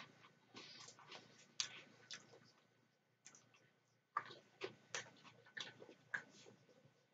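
Macaroni salad being eaten with a metal fork from a plastic tub: a string of sharp, irregular clicks and smacks from the fork, the tub and chewing.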